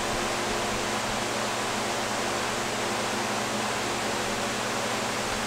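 Several electric shop fans running: a steady rush of moving air with a faint low hum underneath.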